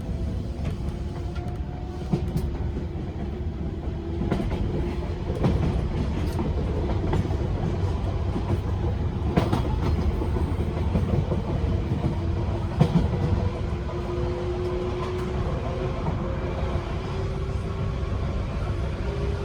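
185 series EMU running at speed, its MT54 DC traction motors giving a whine that drifts slowly upward over a steady low rumble, with scattered clicks from rail joints.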